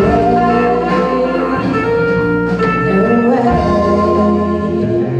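Live band playing with amplified electric guitars and electric bass, and a woman singing held notes into a microphone.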